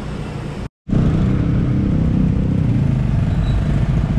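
Motor scooter underway: a steady engine drone with road and wind rumble. It cuts in abruptly about a second in after a brief dropout.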